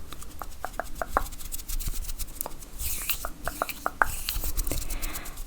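Quick irregular tapping on a bag, with a few short stretches of scratching on its surface.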